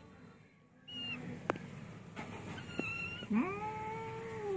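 A cat's long, drawn-out meow that starts about three seconds in, swooping up and then held. It is preceded by two short high chirps.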